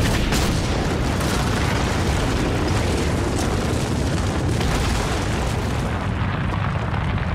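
Cartoon sound effect of an ice cavern shaking and caving in: a continuous, heavy rumble of crumbling ice and rock that holds steady without a break.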